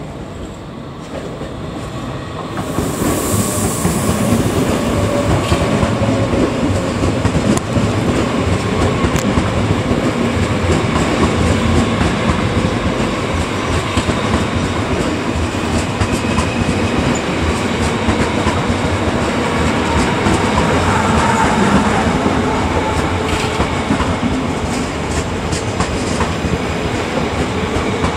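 Red S-Bahn electric multiple unit approaching and rolling past close by, loud from about two and a half seconds in: a steady rumble of wheels on rail with repeated clicks as the wheels cross rail joints and a faint whine.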